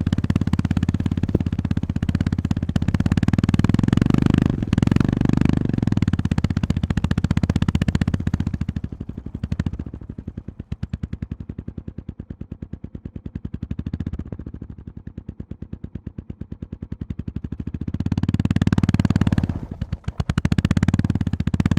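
Honda GB350S's air-cooled 348 cc single-cylinder engine running under way, its exhaust firing pulses coming in a fast, even train. About halfway through the throttle closes and the engine runs quieter for several seconds, then opens up and gets loud again near the end.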